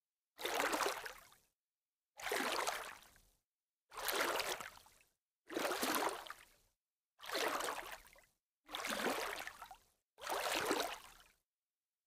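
Water splashing slowly, seven separate splashes about one and a half seconds apart, each starting suddenly and fading out over about a second, with dead silence between them.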